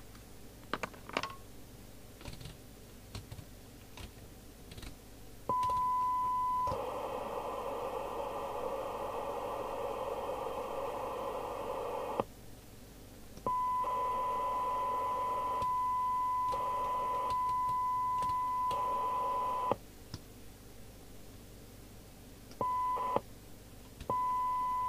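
Domico Convoy FM CB radio's speaker playing a steady 1 kHz test tone, at times mixed with receiver hiss. The sound switches on and cuts off abruptly several times as the squelch opens and closes while its threshold is being set. A few faint clicks come first.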